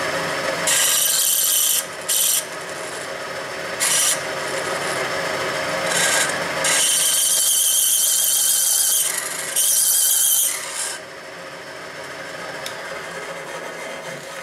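Capstan lathe running with a drill in its chuck, fed into a steel part clamped in a V-block. About six harsh, rasping squeals of metal on metal come and go, the longest a couple of seconds, as the drill catches, the chuck sitting very close to the clamp. The squeals stop after about eleven seconds and the machine runs on more quietly.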